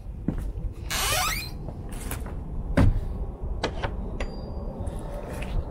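A shed door scraping as it is pushed open, then a sharp knock about three seconds in and a few smaller clicks, with a short squeak a little after.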